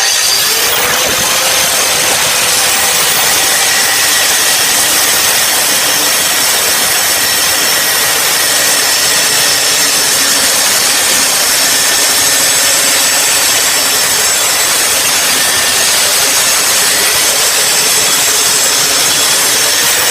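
Hyper Tough angle grinder spinning up and cutting into a grade 8 steel bolt, a harsh continuous grinding over a steady motor whine. The bolt is not yet cut through.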